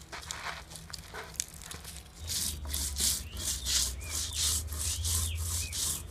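A stone roller is rubbed back and forth on a flat grinding stone (sil-batta), crushing seeds. It makes a rhythmic gritty scraping of about three strokes a second, starting about two seconds in. Faint bird chirps sound over it.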